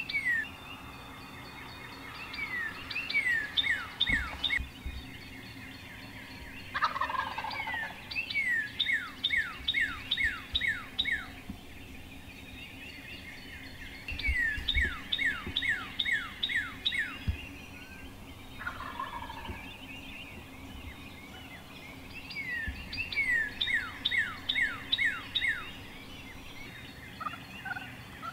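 A wild turkey gobbles twice, about seven and nineteen seconds in, against a songbird that keeps repeating a series of clear downslurred whistles, six to eight notes at a time.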